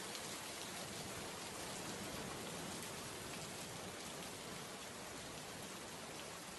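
Heavy rain falling steadily, an even hiss of many drops splashing down.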